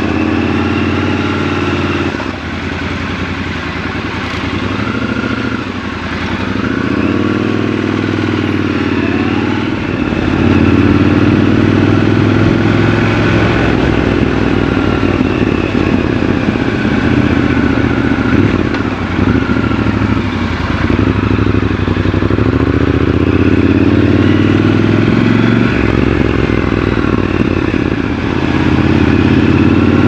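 Triumph Scrambler 1200 XC's 1200 cc parallel-twin engine running as the bike is ridden, its pitch rising and falling with throttle and gear changes. It gets louder from about a third of the way in.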